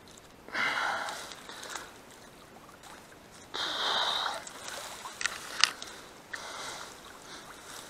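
Water sloshing and reeds swishing as someone wades through a reed-choked, water-filled ditch, coming in three surges, with a few sharp clicks a little past the middle.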